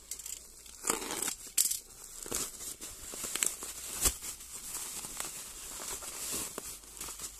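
Plastic courier mailer bag and bubble wrap crinkling and tearing as hands pull a parcel out of it, with irregular sharp crackles, the loudest about four seconds in.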